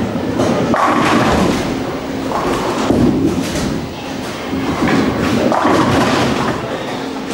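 Lane #1 Buzzbomb bowling ball rolling down the lane and crashing into the pins twice, about a second in and again near six seconds in. Under it runs the steady rumble and clatter of a busy bowling alley.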